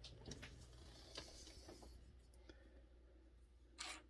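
Faint small clicks and light scraping of 3D-printed plastic tail-light parts being handled and pushed into place, with a short scrape near the end.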